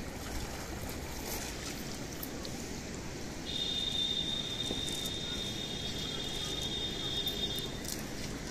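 Wind rumbling on the microphone over the splash and drip of men wading through river water with wet cast nets. A steady high-pitched whine comes in about a third of the way through and holds for about four seconds before stopping.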